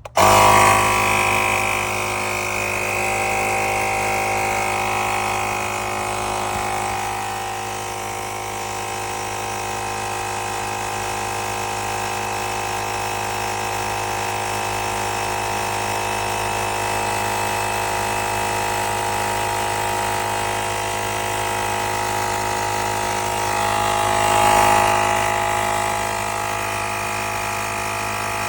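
Small electric air compressor built into an ANFLAG portable jump starter, switching on abruptly and running with a steady motor hum, swelling briefly near the end.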